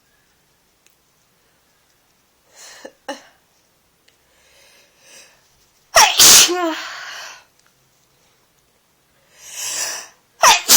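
A person with a head cold sneezing twice, loud and wet, each sneeze led in by a drawn breath. The first comes about six seconds in with a falling vocal tail, and the second starts right at the end.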